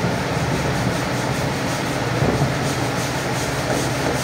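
Steady machine hum with an even rushing noise underneath.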